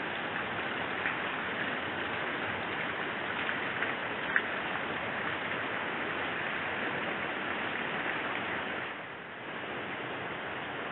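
Heavy rain falling on a clay-tile roof, a steady hiss of rain with one sharp tap about four seconds in. Near the end it turns to a slightly softer, steady rain sound.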